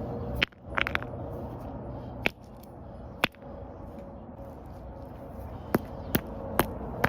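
A keyboard keycap being smashed: about ten sharp clacks at irregular intervals, a quick cluster of three around the first second, over a steady low background hum.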